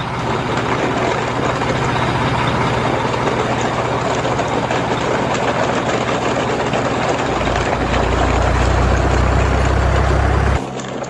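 Heavy truck engine running steadily. A deeper drone joins about seven seconds in, and the engine sound cuts off shortly before the end.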